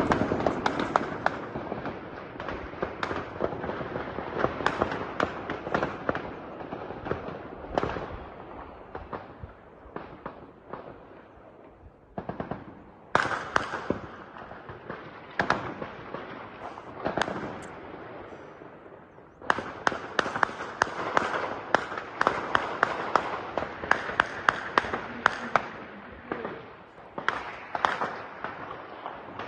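Sustained gunfire: many sharp shots, some in rapid runs, with a crackling haze between them. The firing thins out in the middle, comes in quick clusters, then grows dense again after about twenty seconds.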